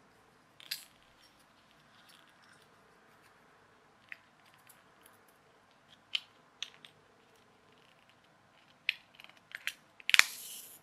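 Small plastic parts of a clockwork racing snail toy clicking and tapping as they are handled and fitted together, a few scattered clicks, then a cluster of clicks and a loud snap near the end as the green plastic body clips shut.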